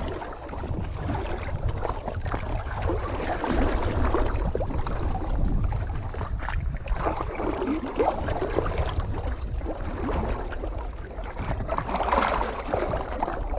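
Small waves lapping and splashing right at a microphone held at the water's surface, with a low rumble of wind buffeting the microphone. It swells and eases irregularly with the chop.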